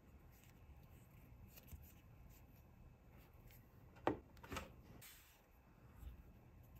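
Quiet handling of a toy or its packaging: two sharp clicks, half a second apart, about four seconds in, then a brief soft rustle.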